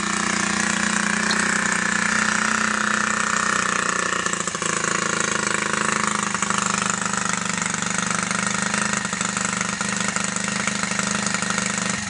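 A GEET-modified 49cc bicycle engine running steadily at idle, just after being started.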